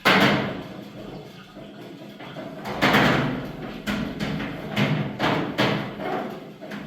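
A loud thump, then a string of sharper knocks and bangs over the next few seconds, like things being handled or struck.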